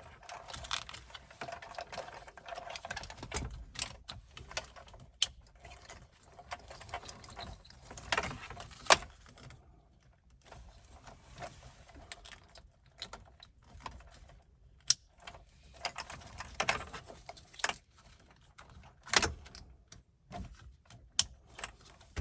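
Plastic wiring-harness connectors and cables being handled and plugged together, with rustling and irregular sharp clicks.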